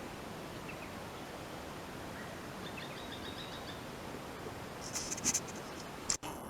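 Steady outdoor background noise with a few faint bird chirps. About five seconds in comes a short, louder burst of sharp high sounds.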